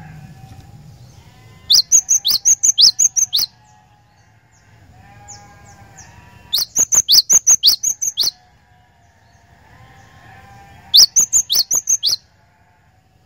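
Cinereous tit (glatik batu) singing three loud bursts of rapid repeated sharp notes, each burst one to two seconds long at about six notes a second. Fainter, lower calling runs between the bursts.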